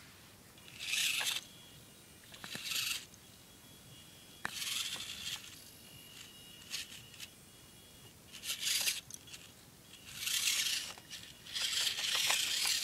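Losi micro crawler's small electric motor and gears, with a 10-tooth pinion, whirring in short bursts of throttle, about seven in all and closer together near the end, as the truck crawls over rocks, with tyres scrabbling and scraping on the stone.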